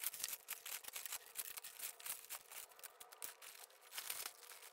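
Faint, irregular clinking and ticking of small metal brooches and costume jewellery pieces being scooped off a felt cloth into a plastic bag, with light plastic rustling.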